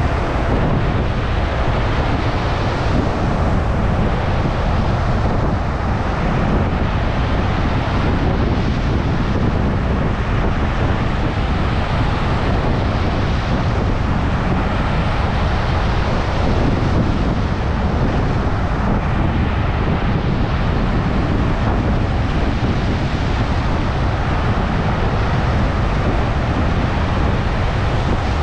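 Stormy surf breaking continuously under strong wind, with wind buffeting the microphone as a heavy low rumble.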